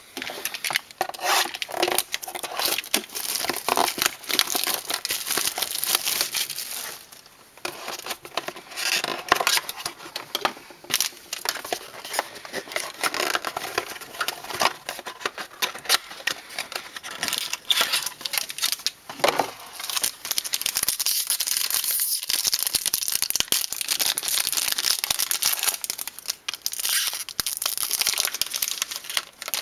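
Trading-card pack wrapper being torn open and crinkled by hand, a continuous crackling rustle with many small clicks, briefly pausing about seven seconds in.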